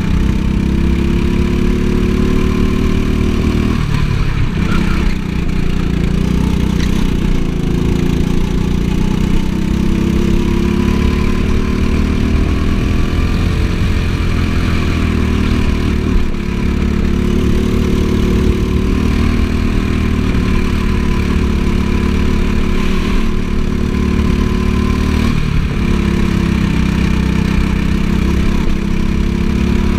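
Go-kart engine heard from on board the kart, running hard while lapping. Its pitch rises and falls in long sweeps as the kart accelerates and slows for corners, with sharp drops in revs about four seconds in, around sixteen seconds, and near twenty-five seconds.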